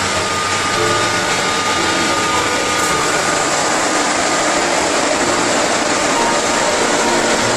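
Jelly filling and sealing production line running: a steady, even mechanical noise with a hiss, and a few faint held tones over it.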